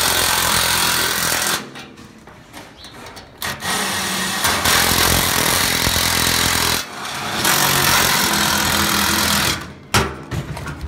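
A handheld power tool, of the kind used to drive bolts and screws in assembly, running in three long bursts with short pauses between them, followed by a few sharp knocks near the end.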